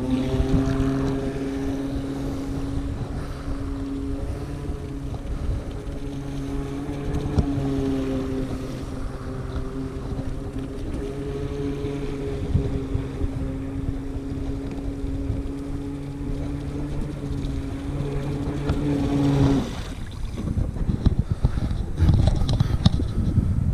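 Futaba Super Candy RC boat's motor running at a steady pitch as the boat speeds across the water, cutting off suddenly a few seconds before the end. Wind buffets the microphone throughout.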